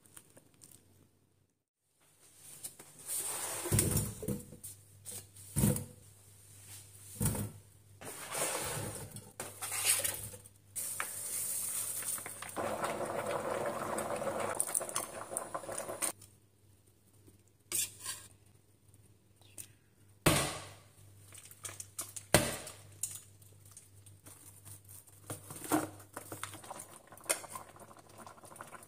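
Stainless steel cooking pot and utensils clinking and knocking on an induction hob while ingredients and seasonings go in, with a few seconds of steady pouring into the pot near the middle. A faint low hum runs underneath.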